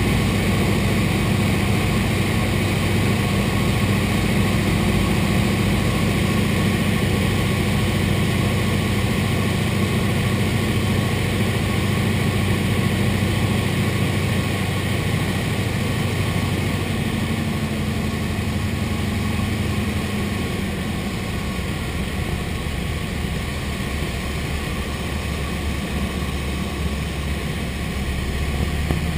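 De Havilland Canada DHC-2 Beaver floatplane's radial engine and propeller droning steadily, heard from inside the cockpit. The sound eases off somewhat through the second half of the descent and grows louder again near the end.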